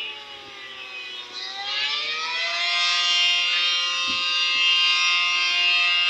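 American Signal Allertor 125 electronic outdoor warning siren sounding a steady tone rich in overtones. Its pitch and loudness dip in the first second or so, rise again, and then hold steady.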